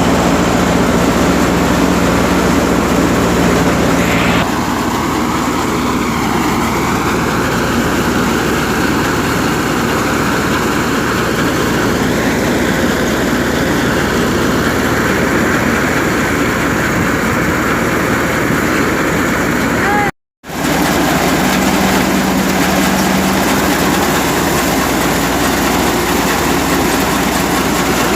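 Tractor-driven wheat thresher running steadily: a loud, even mechanical noise. The sound cuts out briefly about twenty seconds in.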